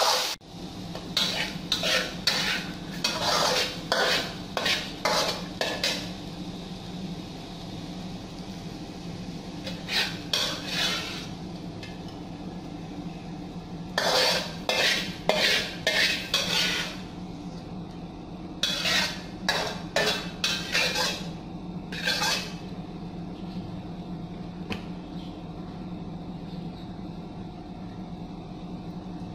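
Cooking utensil scraping and stirring against an aluminium wok in four runs of quick strokes, as fried ginger strips are stirred and scraped out of the pan.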